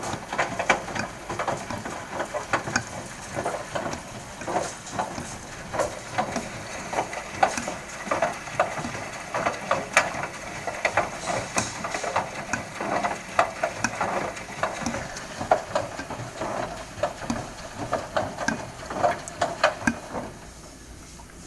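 Bosch front-loading washing machine on a wash cycle, its drum turning with the drain pipe tumbling inside. The result is a dense, irregular clatter of knocks and clicks with water sloshing. The clatter stops near the end.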